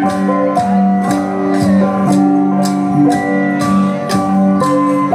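Central Highlands bronze gong ensemble playing: gongs of several different pitches struck in turn, their tones ringing and overlapping in an interlocking pattern, with a sharp high stroke keeping the beat about twice a second.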